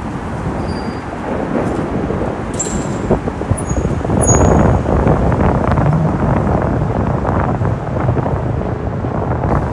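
Urban street traffic noise with wind buffeting the microphone; it grows louder about four seconds in as a car drives past close by.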